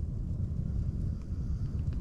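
Strong wind gusting, a low rumble that swells and falls unevenly, with a few faint ticks.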